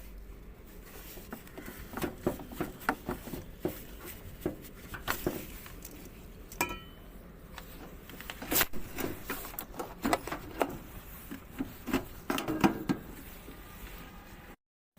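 Irregular clicks, knocks and rubbing of hard parts being handled, with one short squeak about seven seconds in.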